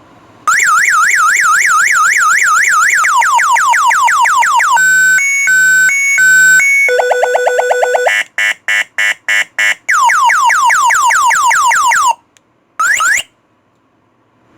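Electronic anti-theft alarm siren of a motorcycle handlebar audio unit, cycling through its tones: a fast warble, repeated falling sweeps, a two-tone beep, a steady tone, rapid pulsing beeps, then falling sweeps again. It stops and gives one short rising chirp near the end.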